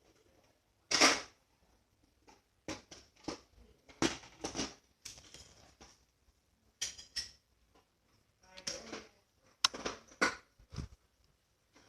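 Slime being squeezed and poked by hand: irregular short squishy crackles, about a dozen, the loudest about a second in.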